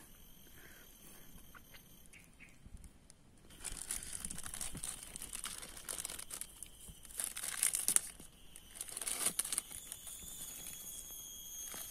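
A plastic bag crinkling and rustling in hand, in irregular bouts from about three and a half seconds in until near the end, as a coil of steel snare cable is taken out of it.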